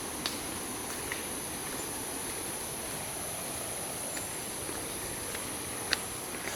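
Steady high-pitched insect drone over an even rushing noise, with a few faint clicks.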